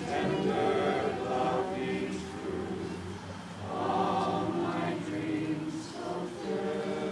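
A crowd of people singing together without accompaniment, slow held notes in phrases a few seconds long.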